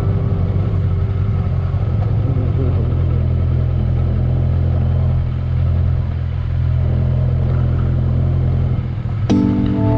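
Motorcycle engine running steadily while riding, a dense low hum. About nine seconds in, guitar music comes in over it.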